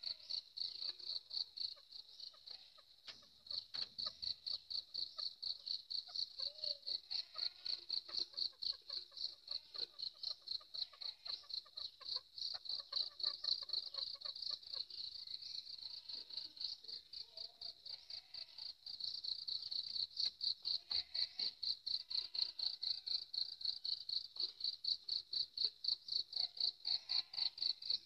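An insect, likely a cricket, chirping steadily in a fast, even pulse of about four chirps a second. It pauses briefly about two seconds in.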